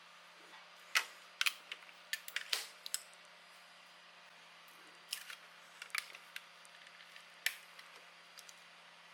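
Irregular sharp clicks and taps of 3D-printed plastic parts being handled and fitted together, over a faint steady hum.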